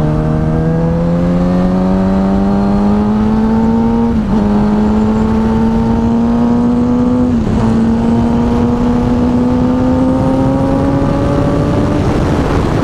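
Suzuki GSX-R 750's inline-four engine under hard acceleration, its note rising steadily and dipping briefly with two quick upshifts, about four and seven seconds in, then levelling off near the end.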